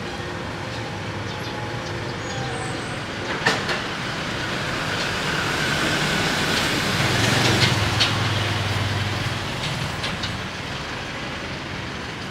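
A heavy motor vehicle passing close by in street traffic, its low engine hum swelling to a peak a little past the middle and then fading. A sharp knock about three and a half seconds in, and a couple of smaller clicks at the peak.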